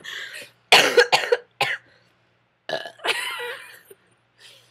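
A person burping over and over: a run of short burps about a second in, then a longer one about three seconds in.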